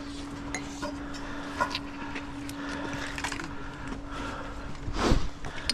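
Rusty iron finds clicking and tapping as they are handled and set down on a stone parapet, over a steady low engine hum from road traffic. A louder thump about five seconds in.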